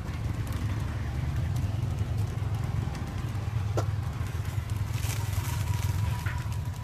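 Fresh leafy greens being stripped from their stems by hand: faint snaps and rustles over a steady low rumble.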